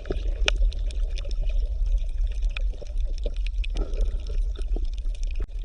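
Water trickling and splashing with many small irregular clicks over a steady low hum, as from a fish tank or tub.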